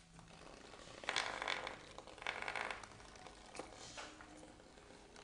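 Bristlebot running on a wooden tabletop: its small vibration motor buzzing and its toothbrush-head bristles rattling on the wood, loudest in two short stretches about one and two seconds in.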